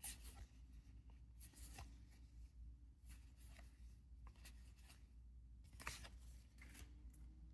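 Near silence with scattered faint clicks and short rustles of trading cards being handled.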